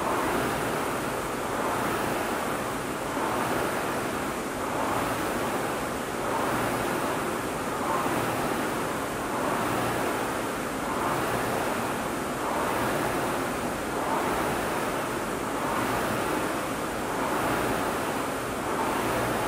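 Rowing machine flywheel whooshing with each pull, swelling and fading in a steady rhythm of about one stroke every 1.6 seconds.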